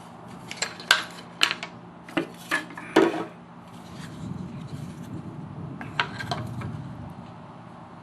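Hands handling the scroll saw's blade clamp and the wooden workpiece: a series of sharp clicks and knocks of metal and wood, then a low rubbing noise, with two more clicks about six seconds in. The saw is not cutting.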